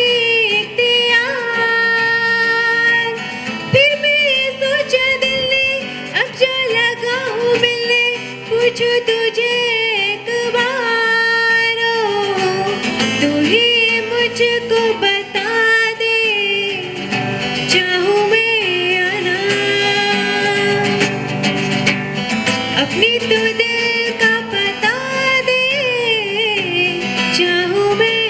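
Live music: a woman's voice singing a melody that bends in pitch, over guitar accompaniment.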